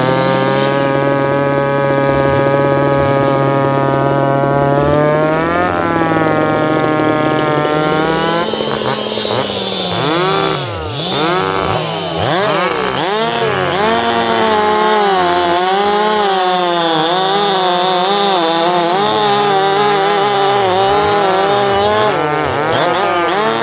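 Two-stroke chainsaw engine running at high revs. The pitch holds steady for the first few seconds and climbs about five seconds in. From about eight seconds on it swings up and down again and again as the throttle is worked.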